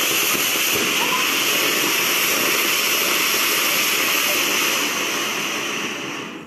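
Ground fountain firework (flower pot) spraying sparks with a loud, steady hiss that eases off near the end and dies out as the fountain burns down.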